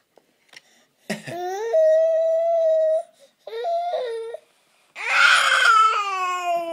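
Baby crying in three high wails: one held for about two seconds starting about a second in, a short one, then a long, rough-edged one near the end.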